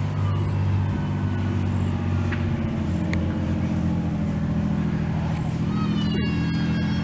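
An engine running steadily at low revs, with a brief high-pitched whine near the end.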